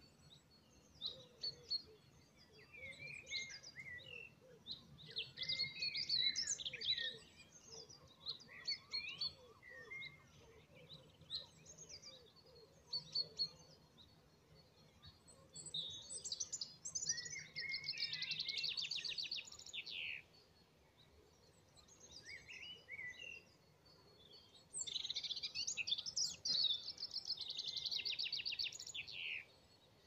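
Songbirds singing at dusk: scattered chirps and short phrases throughout, with two loud, rapid trilling songs, one about halfway through and one near the end.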